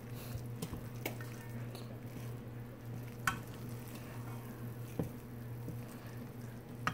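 A spoon stirring and turning yellow rice in a stainless pan, with a few sharp clicks of the spoon against the metal, over a steady low hum.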